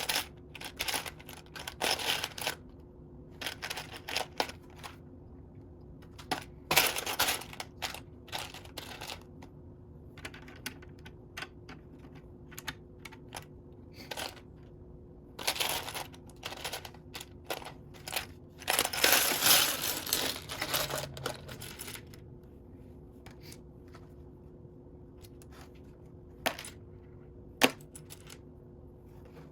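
Loose Lego pieces clicking and clattering as hands rummage through a pile of unsorted bricks, in irregular bursts with quiet gaps, the longest stretch of rattling about two-thirds of the way through.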